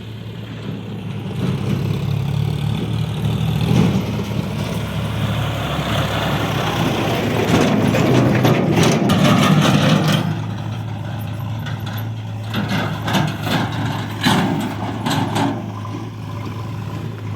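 Diesel engine of earth-moving machinery running steadily, getting louder and working harder about eight seconds in, with a run of knocks and clanks through the middle and later part.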